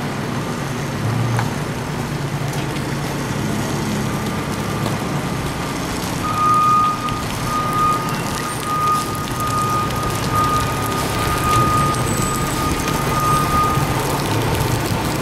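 Truck engine idling steadily, with a high-pitched tone over it from about four seconds in until near the end.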